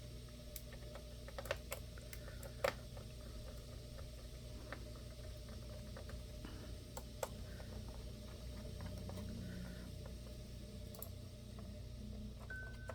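Small screws being driven back into a laptop's screen assembly with a hand screwdriver: a few light, irregular clicks and taps over a steady low hum.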